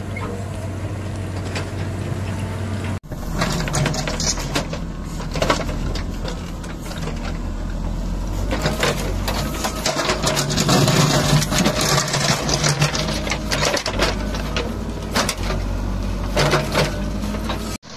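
Engine of work machinery running, with clatter and knocks over a steady low hum. The sound cuts abruptly to a new shot about three seconds in and again near the end.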